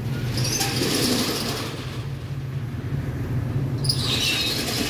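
Street traffic: a steady low engine hum, with two hissing swells of passing vehicles, one about half a second in and another near the end.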